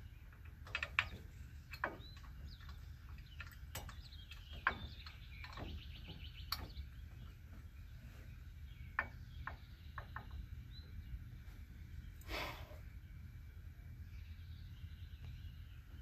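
Scattered light metallic clicks and taps of bolts being handled and threaded by hand into a steel wheel-hub adapter, over a low steady background hum, with one longer scraping rustle about twelve seconds in.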